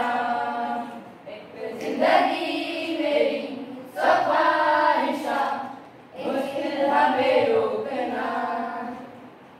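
A group of children singing together unaccompanied, in four sung phrases with short breaks between them.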